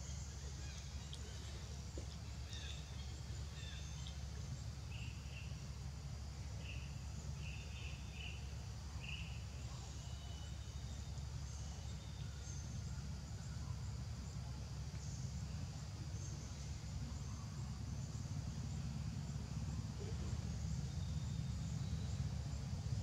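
Outdoor background noise: a steady low rumble with a high, insect-like hiss, and a run of short high chirps from about five to nine seconds in.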